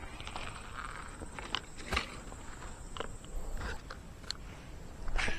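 Scattered light clicks, taps and rustles of an angler handling a just-caught fish and tackle, a slightly louder cluster near the end.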